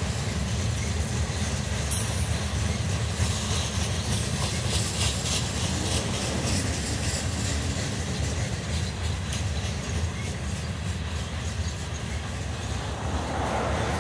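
Covered hopper cars of a long freight train rolling past, the wheels on the rails giving a steady low rumble with scattered clicks.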